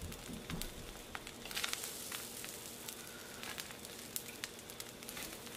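Spatula stirring through a large pot of hot, freshly steamed jollof rice, with sizzling and many short crackling ticks from the pot.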